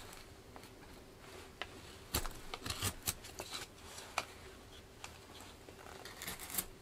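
Mora Companion knife with a freshly sharpened Scandi edge slicing shavings off a seasoned yew spatula blank: a few short, crisp cutting strokes, bunched about two to three seconds in with another about four seconds in.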